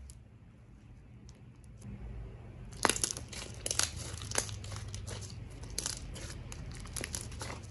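Thick red slime squeezed and pressed in the hands, popping the air bubbles trapped inside it: heavy, sharp popping and crackling that begins about three seconds in, with the first pop the loudest, after quieter stretching sounds.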